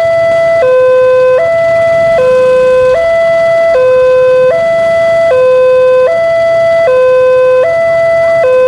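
Level-crossing warning alarm from a horn loudspeaker, loud and steady, alternating between a low and a slightly higher tone about every 0.8 seconds. It sounds while the crossing barrier is down, signalling that a train is approaching.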